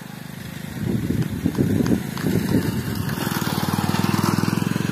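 A small engine running with a fast, even putter, swelling to its loudest about four seconds in and starting to fade at the end, as if passing by.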